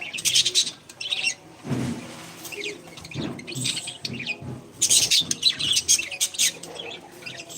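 Pet parrots chirping: dense clusters of short, high-pitched chirps, loudest near the start and again about five seconds in.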